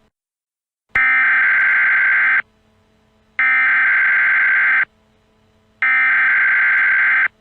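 Three bursts of Emergency Alert System SAME header data: harsh, buzzy digital tone bursts that open an emergency alert broadcast. Each lasts about a second and a half, with about a second's pause between them, and the first starts about a second in.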